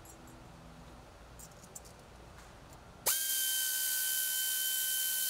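A few faint clicks of a hose clamp being handled, then about three seconds in a power tool starts suddenly and runs with a steady, even-pitched whine over a hiss, tightening the T-bolt clamp on a boost tube.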